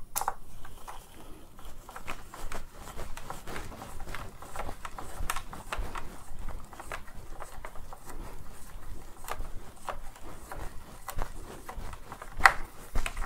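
Small screwdriver driving the battery screws of a Dyson V10 cordless vacuum, with the plastic battery pack and handle being handled: a run of irregular small clicks and scrapes, one louder click near the end.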